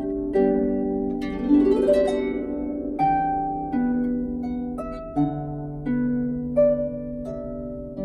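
Salvi Mia 34 lever harp with silkgut strings, played with both hands: plucked melody notes over lower bass notes, each ringing and fading. A quick rising run of notes comes about one and a half seconds in.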